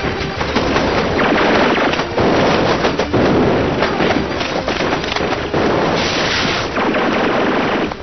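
Dense gunfire and explosions from a TV battle scene, many sharp cracks and bangs close together over thick noise, played back sped up.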